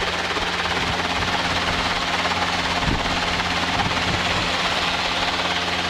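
Robinson R22 helicopter's piston engine and rotors running steadily, heard from inside the cockpit: a constant drone with a steady low hum beneath it.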